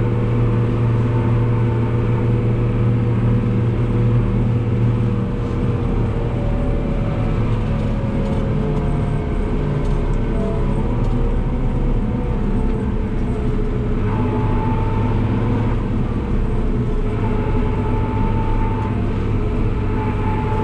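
New Holland TM165 tractor's six-cylinder diesel engine running steadily under load, pulling a loaded silage trailer, heard from inside the cab. The engine note eases off about five seconds in and picks back up near fourteen seconds.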